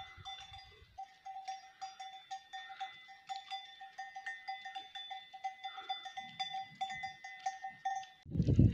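Camel bells clanking and ringing over and over in an uneven rhythm as the camels walk. Near the end a loud rush of wind on the microphone cuts in.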